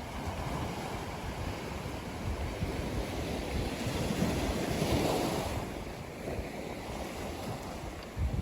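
Ocean waves breaking on a sandy beach: a steady wash of surf that swells to its loudest about halfway through and then draws back.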